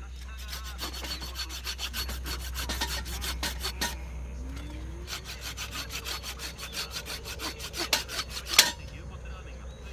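Wood being cut by hand, the quick, even back-and-forth strokes of a saw through a branch, plausibly for the frying pan's wooden handle. Two sharper knocks sound near the end.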